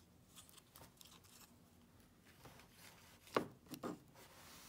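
Faint handling noise of a small plexiglass case with metal standoffs and screws: soft rubbing and light clicks of fingers on the acrylic, with two sharper knocks about three and a half seconds in.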